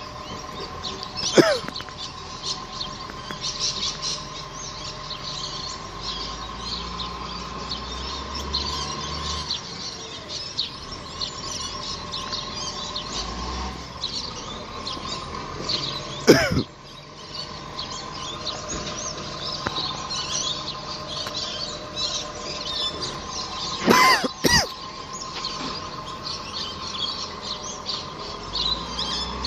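Birds chirping and calling, with three louder calls that sweep downward in pitch, about a second and a half in, about halfway and near the end, over a steady faint hum.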